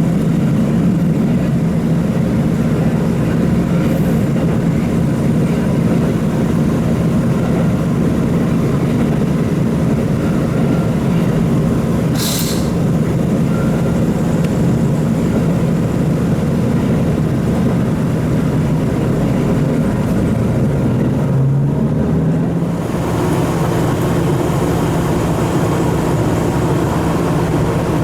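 Diesel railcar running between stations, heard from inside the carriage: a steady engine drone under wheel and track noise, with a brief high hiss about twelve seconds in and a change in the engine note about twenty-two seconds in.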